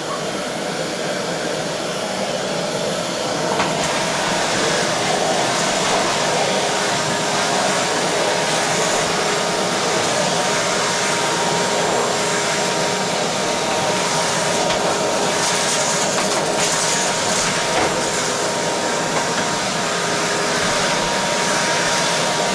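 Aspiron 1200W bagless canister vacuum cleaner running steadily with a rushing sound and a steady whine, its floor head sucking up small bits of food from a linoleum floor. It gets a little louder about three and a half seconds in.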